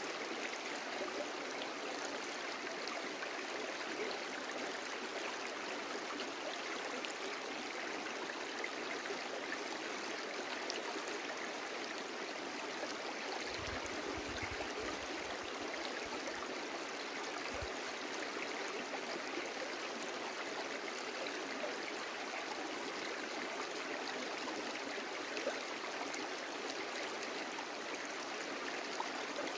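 A brook flowing steadily: an even, unbroken rush and babble of running water, with a few brief low bumps about halfway through.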